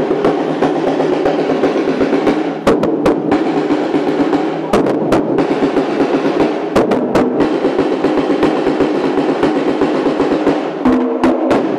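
Batucada samba percussion ensemble drumming a fast, dense rhythm of snare and other drums, with a few short breaks in the pattern.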